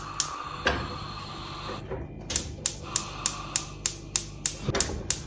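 Gas stove's electric igniter clicking, a single click early and then a rapid run of about four clicks a second from about two seconds in, over a faint steady hum.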